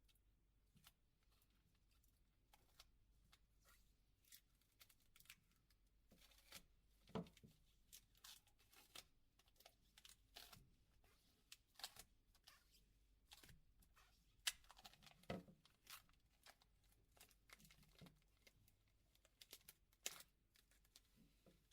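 Faint crinkling and light ticking of thin plastic protective film being peeled off a mobile phone's body, in scattered small crackles with a few sharper ticks around the middle.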